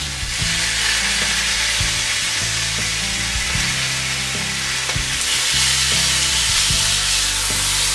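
Fish fillets sizzling steadily on a hot, oiled cast iron grill pan over a gas burner on high, with a few faint clicks as a metal spatula is worked under a fillet.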